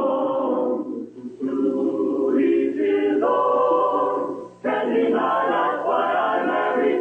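Choir singing a sitcom's closing theme song in held, sweeping notes. The singing breaks briefly about a second in and again about four and a half seconds in.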